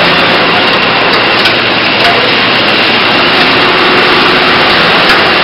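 Tyre recycling machinery running: a loud, steady mechanical noise with a faint low hum under it and a few light knocks.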